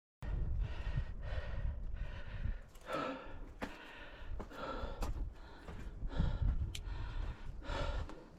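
A person breathing hard in heavy sighs and gasps after a climb, over a low rumble of wind on the microphone.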